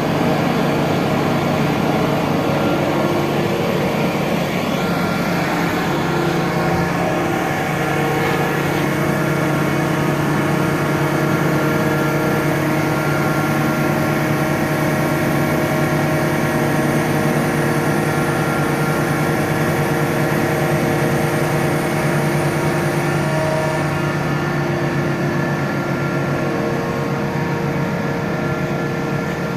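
Truck-mounted mobile crane's diesel engine running steadily.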